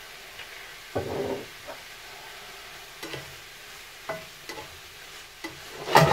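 Prawns frying in a frying pan, a steady soft sizzle, with a metal spatula scraping and knocking in the pan as they are stirred and turned: a longer scrape about a second in, a few short knocks after, and a louder clatter at the end.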